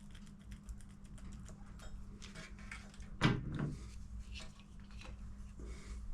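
Hand work on a motorcycle's clutch and primary drive: scattered light clicks of metal parts being handled, with a knock about three seconds in and a smaller one just after, over a steady low hum.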